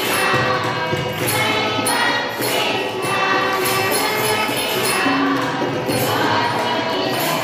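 A woman singing into a microphone with a group of voices singing along, over a regular beat of sharp jingling strokes about twice a second.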